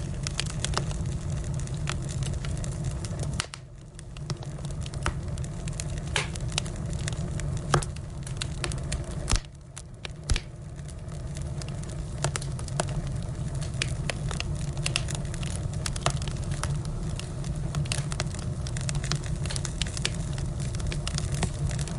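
Firewood burning, crackling and popping over a steady low rumble of the fire, with a few louder pops around eight to ten seconds in. The sound drops away briefly twice, about three and a half and nine and a half seconds in.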